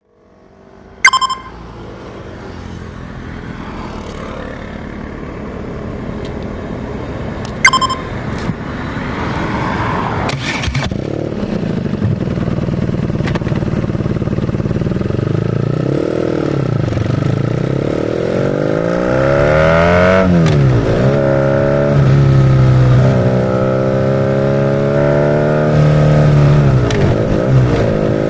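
BMW R nineT's air/oil-cooled boxer twin running through a Pro Race GP S1 aftermarket exhaust, with two short, sharp chirps early on. From about ten seconds in, the bike pulls away and accelerates, the revs rising and dropping back at each gear change several times.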